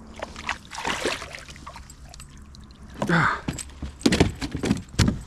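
Red (sockeye) salmon splashing at the surface as it is hauled to the kayak by hand, then flopping on the kayak's plastic deck in a run of loud thumps and knocks over the last two seconds or so.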